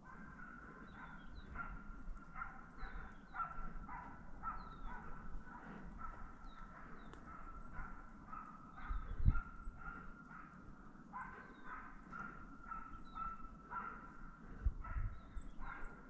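A Wachtelhund barking in the distance, a steady run of short barks about two a second with brief pauses, giving tongue as it trails game. A low thump about nine seconds in.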